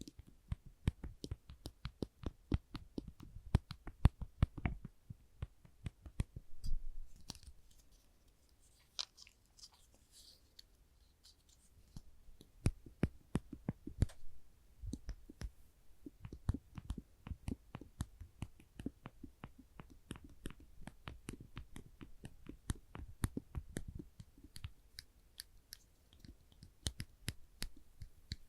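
Small orange-tipped clamps being squeezed and released by hand, giving rapid, irregular clicks and taps. About a third of the way through there is a quieter, scratchier spell before the clicking picks up again.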